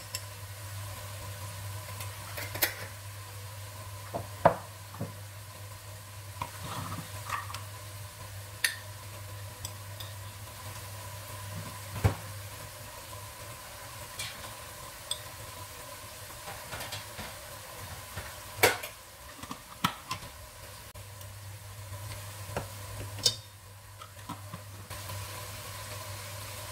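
Wooden spoon stirring chicken, tomatoes and ground spices frying in a nonstick pot, with a light sizzle and irregular knocks of the spoon against the pot, the loudest a few seconds apart. A steady low hum runs underneath.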